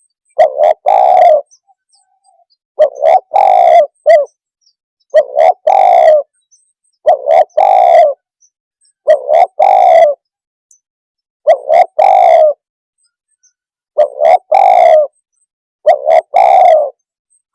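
Spotted dove (tekukur) cooing: a loud phrase of about three coos, repeated eight times at roughly two-second intervals.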